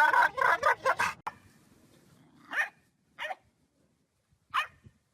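A dog barking: a quick run of yips over the first second, then three separate single barks.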